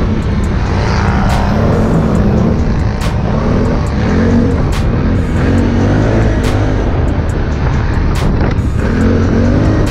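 Music with a regular beat plays over the running engine of a Can-Am Outlander ATV.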